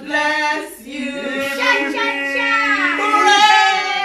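A family singing together, children's and adults' voices mixed, holding long notes; about three seconds in, one high voice slides down in pitch.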